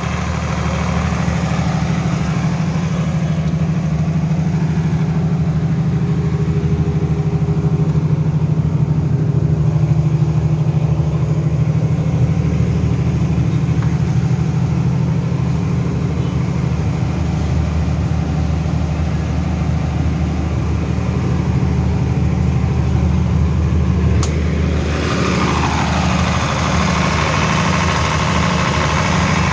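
Diesel generator set's engine running steadily at constant speed, a continuous low hum. Near the end the sound turns brighter.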